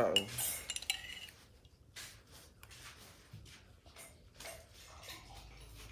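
A metal spoon stirring and clinking in a drinking glass, loudest in the first second, followed by fainter small clinks and sips as the drink is drunk.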